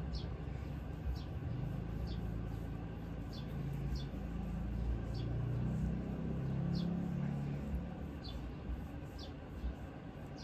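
A small bird chirping over and over, short high chirps that fall in pitch, about one a second, over a steady low rumble like distant traffic that swells in the middle.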